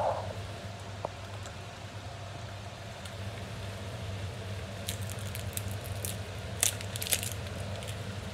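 Mince and tomato sauce simmering in a frying pan on the hob: soft bubbling over a steady low hum, with a cluster of short crackles and pops about five to seven seconds in.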